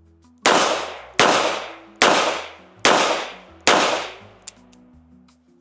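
Ruger SP101 .357 revolver fired five times in quick succession, about one shot every 0.8 seconds, each shot with a short ringing tail.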